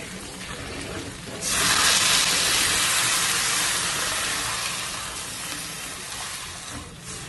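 Water poured into a kadai of hot oil and fried spices: a sudden loud hiss of steam and sizzling about a second and a half in, slowly dying down to a gentler sizzle.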